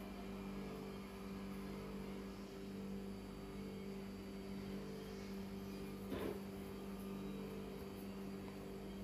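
Steady low electrical hum, with one brief soft noise about six seconds in.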